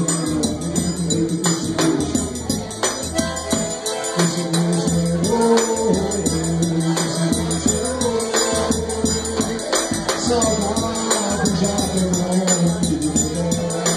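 Live forró played on accordion and zabumba bass drum: the accordion carries a melody of held notes over a steady, regular bass drum beat, with a high percussion ticking keeping time.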